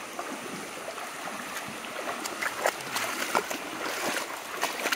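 Flowing stream water running steadily, with scattered brief splashes and knocks through it.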